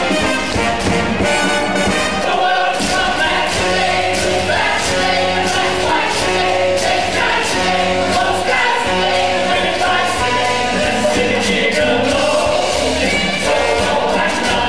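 Musical-theatre pit orchestra playing an upbeat brassy show tune while the ensemble cast sings in chorus.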